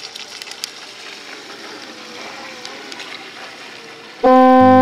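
A steady hiss with a few clicks and a faint wavering whine, then, about four seconds in, a loud sustained horn-like tone that starts abruptly.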